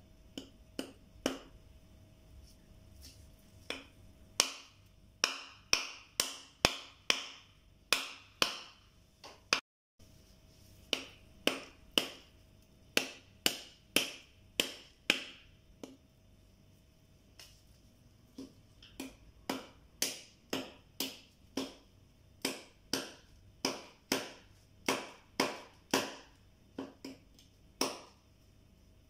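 Kitchen knife chopping into a coconut's fibrous husk to peel it: sharp strikes, about two a second, in bursts with a few seconds' pause midway.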